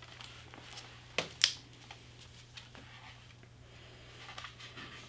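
A hardcover picture book being handed over and its pages handled: a few soft paper rustles and taps, the two loudest close together about a second in, over a faint steady low hum.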